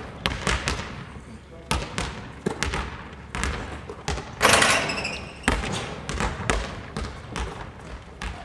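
Basketballs bouncing on a wooden sports-hall floor: irregular sharp thuds that echo in the large hall. About halfway through, a louder, longer burst of noise stands out above the bounces.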